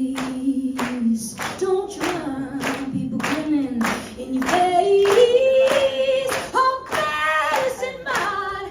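A woman singing a cappella over steady hand claps, about two to three claps a second; her voice climbs to a higher held note about halfway through.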